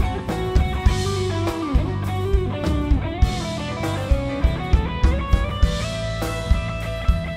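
Electric guitar solo on a Stratocaster-style guitar, a melodic lead line with a note bent downward about two seconds in, backed by a drum kit keeping a steady beat.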